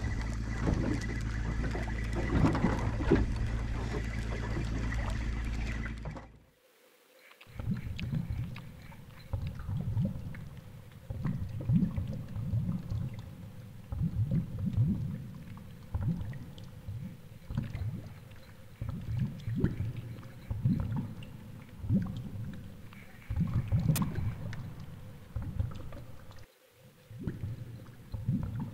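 Steady wind and water noise on a GoPro held above the sea from a boat. About six seconds in, after a brief drop-out, it turns into muffled underwater water rushing and sloshing past a GoPro mounted on a fishing lure, in irregular low pulses as the lure is worked.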